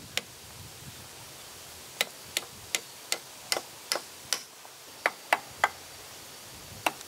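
Sharp wooden taps, in runs of about two and a half a second, as a wooden peg is knocked into a drilled hole to fix a carved wooden handle to a log door.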